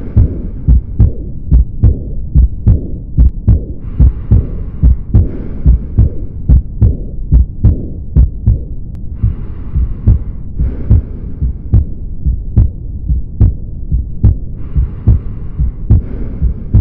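Auscultated heart sounds: a steady, regular train of low thumps a few tenths of a second apart. A soft hiss comes and goes about every five seconds.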